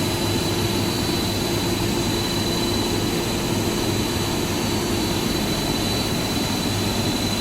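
Machinery of a cable insulation extrusion line running steadily: even mechanical noise with a constant high whine and a low hum.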